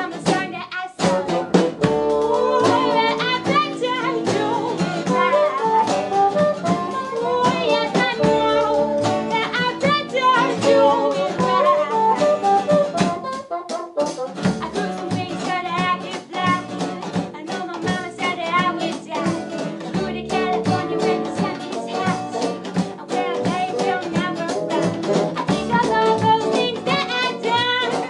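An indie rock band plays an instrumental passage: a bassoon stands out over acoustic guitar, upright bass and drum kit.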